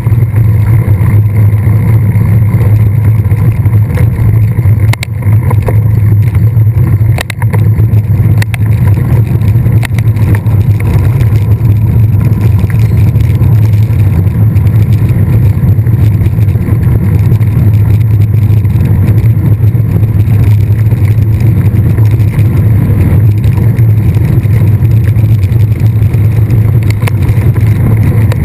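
Wind buffeting a camera microphone on a mountain bike in motion, a loud, steady low rumble, with a few sharp knocks and rattles from the bike over rough ground in the first third.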